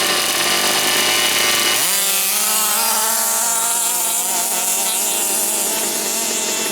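Small two-stroke petrol engine of a large-scale FG RC monster truck running. It revs up sharply about two seconds in, then holds at a higher speed with a slightly wavering pitch.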